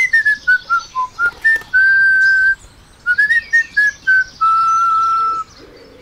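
A short whistled tune: a quick upward swoop, then a run of short notes, a held note about two seconds in, more short notes, and a longer held note near the end.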